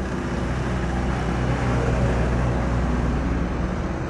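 Low drone of an engine going past, building to its loudest about two seconds in and then fading.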